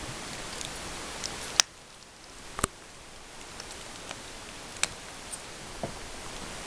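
Papillon puppies scuffling about on a shaggy rug: a steady hiss with a handful of sharp clicks and knocks, the loudest about one and a half seconds in and another about a second later.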